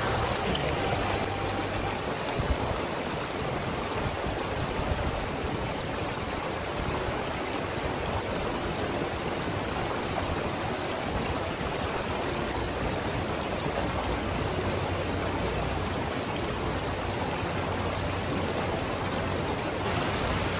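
River water rushing over and between rocks: a steady, even hiss of flowing water.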